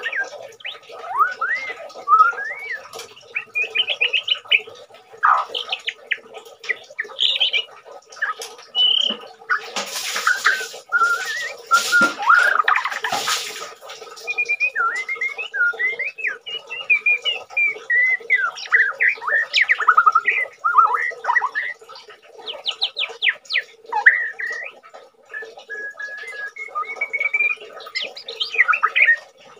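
A caged white-rumped shama, in moult, singing busily: a continuous run of short, varied whistled phrases and quick chattering notes. There is a louder, rougher stretch about ten to fourteen seconds in.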